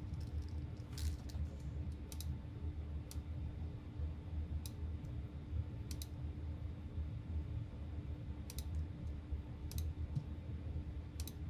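Computer mouse clicking, with single clicks scattered irregularly every second or two, over a steady low electrical hum.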